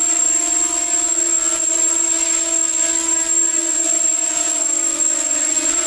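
250-size racing quadcopter on 5x4.5-inch RPG 5045 propellers hovering, its motors and props giving a steady buzzing whine with a thin high whistle above it. The pitch sags slightly about five seconds in as the throttle eases.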